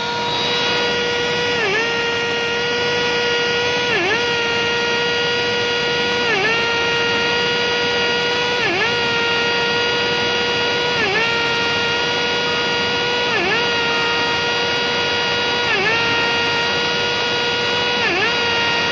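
Portable onsite crankpin machining rig running as it cuts a crankshaft crankpin. A steady motor whine dips briefly in pitch about every two and a half seconds, once per turn, over a bed of cutting noise.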